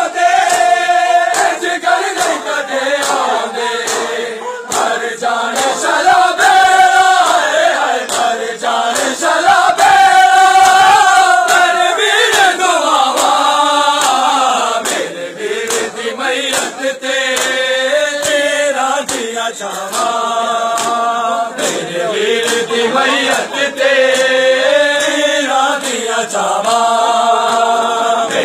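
A group of men's voices chanting a noha, a Shia mourning lament, together in long repeated sung phrases.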